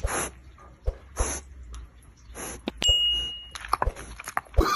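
A pig breathing noisily, one short breath roughly every second and a quarter. About three seconds in comes a click and a short, clear, high ding like a notification bell, then a quick run of clicks.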